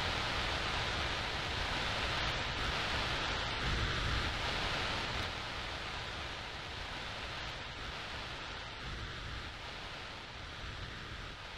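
Steady rushing hiss with a low rumble underneath, easing off gradually through the second half and cutting off abruptly at the very end.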